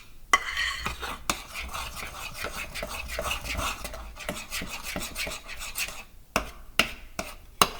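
A utensil stirring thick cake batter in a bowl, scraping and clicking against the sides, with a few sharper knocks, several of them near the end.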